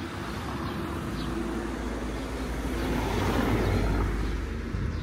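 A motor vehicle driving past, its engine and tyre noise swelling to a peak about four seconds in and then falling away.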